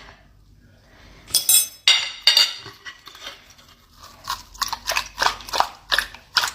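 A metal utensil scraping and clicking against a kina (sea urchin) shell as it is opened. A couple of sharp scrapes come a little over a second in, then a quick run of short clicks and scrapes in the last couple of seconds.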